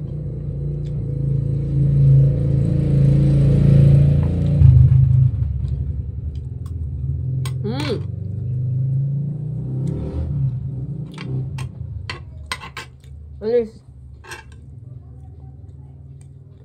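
A motor vehicle's engine rumbles past, loudest about four to five seconds in and then fading. Later come scattered sharp clinks of a metal spoon against a plate.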